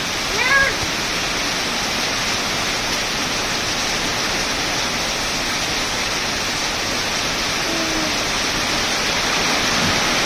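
Steady heavy rain falling on leaves and a gravel yard. About half a second in, a cat meows once, briefly, above the rain.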